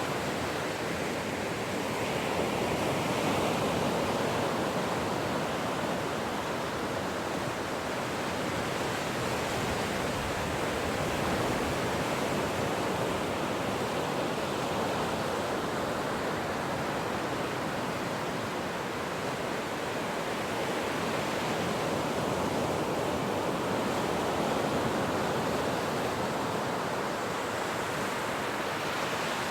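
Ocean waves washing on a shore, a continuous rushing surf with slow, gentle swells in loudness.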